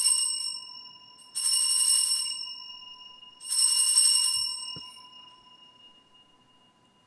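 Altar bells rung three times, about two seconds apart. Each ring is a bright jingle over a ringing tone that fades slowly. They mark the elevation of the chalice at the consecration.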